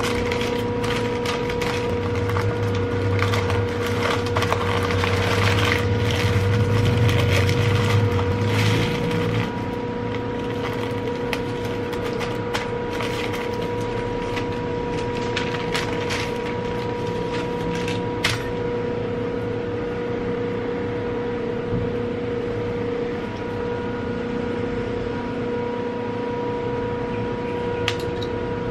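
Parchment paper rustling and crinkling as a sandwich is wrapped on a wooden cutting board, busiest in the first ten seconds, then softer folding and handling with an occasional sharp tap. A steady hum runs underneath.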